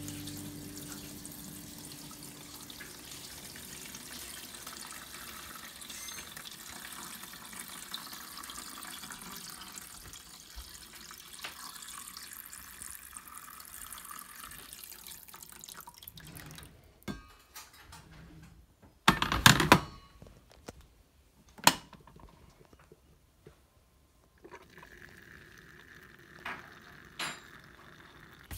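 Water pouring in a steady splashing stream from a carafe into the top of a BUNN ThermoFresh pour-over coffee brewer, for about the first sixteen seconds. A few sharp knocks follow, the loudest a little after halfway. Near the end a faint steady trickle sets in as brewed coffee starts dripping into the thermal carafe.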